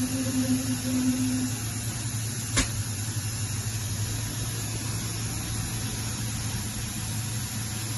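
Hurco VMX42U vertical machining center running steadily with a low hum and a hiss. A held tone stops about a second and a half in, and there is a single sharp click about two and a half seconds in.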